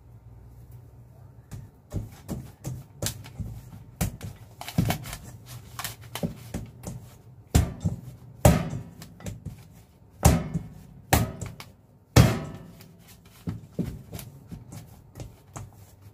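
Milk-bread dough being kneaded by hand and slapped down into a stainless steel bowl: a run of irregular thuds and knocks starting about two seconds in, with a few sharper, louder ones in the middle.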